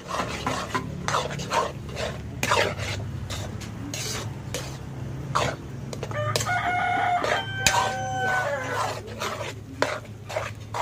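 A rooster crows once, a long call of about two seconds, a little past the middle. Throughout, a metal spatula scrapes and clinks against a wok as strips of jackfruit are stirred.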